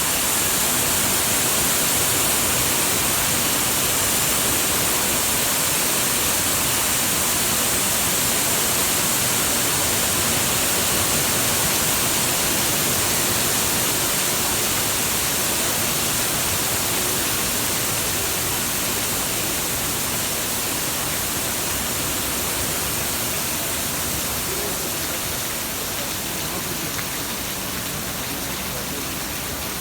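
Rain falling steadily, an even hiss that grows a little quieter over the last ten seconds or so.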